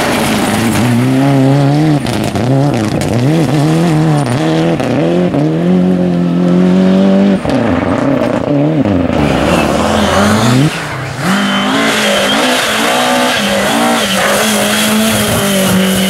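Rally car engines revving hard, the pitch climbing and falling sharply again and again through gear changes and lifts in the corners. The sound breaks off briefly twice, about seven and a half and eleven seconds in, and picks up with another car.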